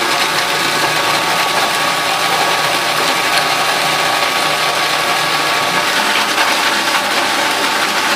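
Cuisinart food processor motor running steadily, its blade churning a runny mix of eggs, chives, seasonings and vinegar: an even whirring hum with a steady whine in it.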